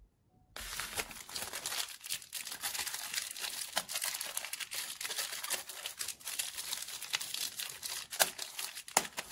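The plastic wrapper of a Nuts chocolate bar being crinkled and torn open by hand. The crackling starts suddenly about half a second in and runs on densely, with many sharp snaps.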